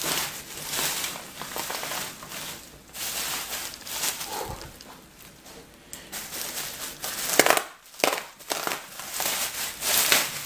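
Plastic bubble wrap crinkling and crackling as it is pulled open by hand, in irregular bursts, with a louder rustle about three quarters of the way through.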